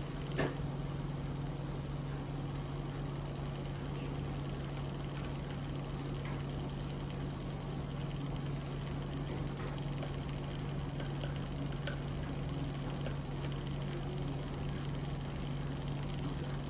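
SilverCrest SZM 500 B2 cotton candy machine's motor running with a steady low hum, a sharp click just after the start.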